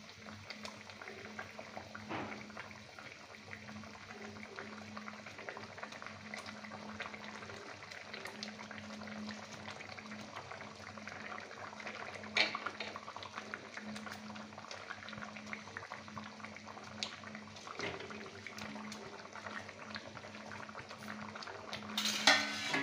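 Thick tomato curry gravy simmering in an iron kadhai, bubbling and popping steadily, with a steady low hum underneath. A few sharper knocks stand out, the loudest near the end.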